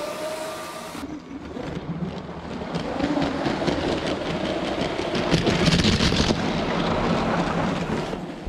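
Lego train running along plastic track close by: a steady rattle of plastic wheels on the rails with dense fast clicking over the track joints and a low motor hum.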